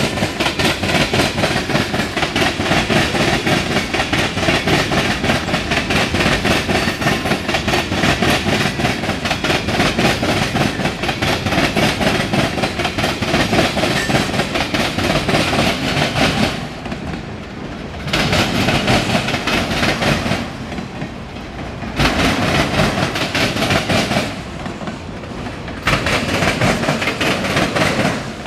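Freight train cars (tank cars, then autoracks) rolling past close by, their steel wheels clicking and rumbling steadily over the rails. In the second half the sound swells and drops roughly every four seconds as the long autorack cars' wheel sets go by.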